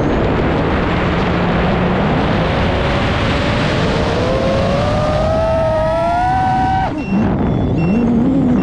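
FPV quadcopter's motors and propellers whining over heavy wind rush. The pitch climbs steadily as the throttle goes up, drops away suddenly about seven seconds in, then rises and falls again.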